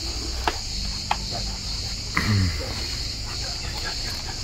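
A steady high-pitched insect chorus throughout, with two sharp ticks in the first second. About two seconds in comes a short, low vocal groan that falls in pitch.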